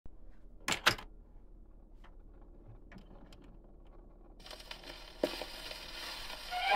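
Gramophone playing a shellac 78 rpm record: two sharp clicks about a second in, then from about halfway the hiss and crackle of the needle running in the record's lead-in groove, with a single louder click near the end.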